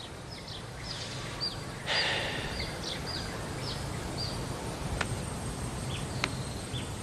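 Birds chirping: many short, high calls that slur downward, repeated over a steady outdoor hiss, with a few sharp clicks in the second half.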